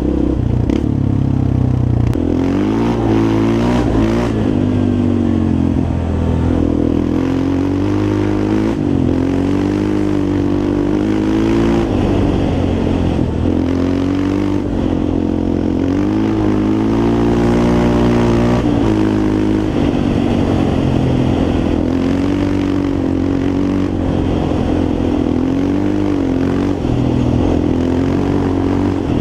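Yamaha Raptor 350 quad's single-cylinder four-stroke engine running while being ridden, its pitch rising and falling again and again as the throttle is opened and closed.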